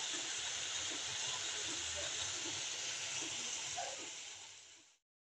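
Cauliflower and potato pieces frying in oil in a wok: a steady sizzle that fades out shortly before the end.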